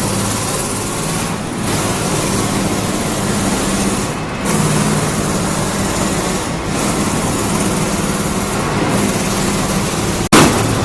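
Steady engine-type mechanical noise with a low hum, like motor vehicles or heavy machinery running, cut by a brief loud burst near the end.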